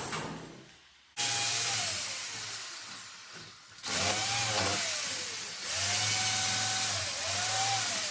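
Handheld electric power tool worked against a brick wall in three long runs starting about a second in, its motor pitch dipping and rising again during each run.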